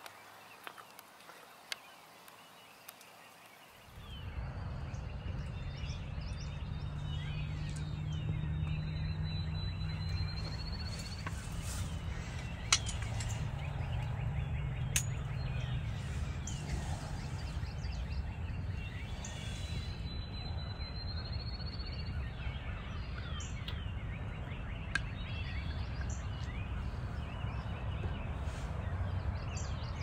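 Quiet field ambience, then about four seconds in a steady low rumble sets in and runs on. Faint bird calls and a few sharp clicks come over it.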